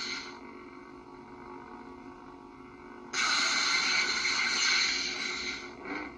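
SaberForge lightsaber hilt's sound board playing through its built-in speaker: a faint steady hum, then about three seconds in a sudden loud hiss of blade sound that lasts over two seconds and fades near the end.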